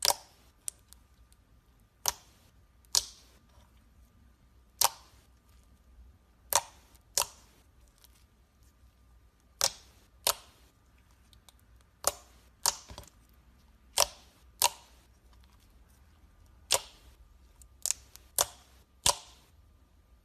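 Sharp pops from slime being worked by hand, about seventeen of them irregularly spaced a second or two apart, some in quick pairs.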